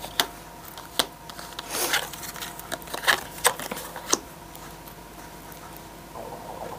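Oracle cards being turned over and laid down on a tabletop: a handful of light taps and soft card swishes in the first four seconds, then only faint handling.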